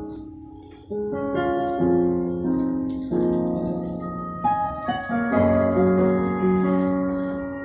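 Piano-toned keyboard playing slow, sustained chords that change every second or so. The sound fades briefly and starts again about a second in.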